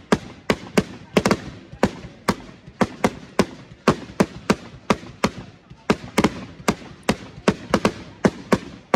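Aerial fireworks going off in a rapid series of sharp bangs, about three a second, as a multi-shot barrage fires its shots one after another and the shells burst.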